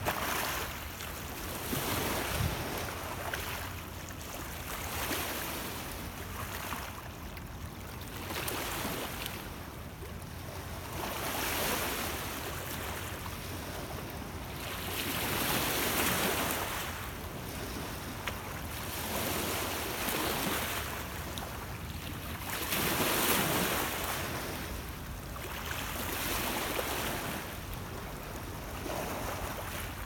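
Small lake waves washing in over a rocky cobble shore, a swell of hiss every two seconds or so, with steady wind in the background.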